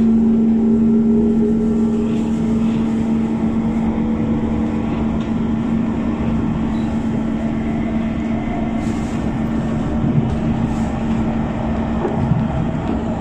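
Inside a moving KHI C151 metro train: the car's steady running hum, with rail rumble and a fainter traction-motor whine that rises slightly in pitch over the second half. Near the end another train passes close alongside.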